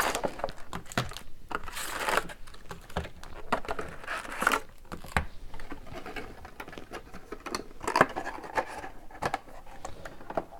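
Plastic trading-card packaging being torn open and crinkled by hand, in irregular rustling bursts.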